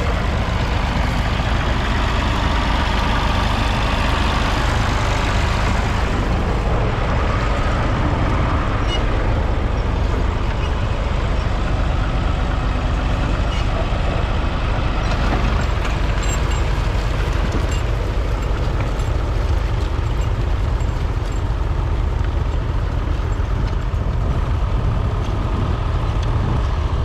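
A 1962 Massey Ferguson 35's 2.5-litre three-cylinder diesel engine running steadily as the tractor pulls a two-furrow mounted plough.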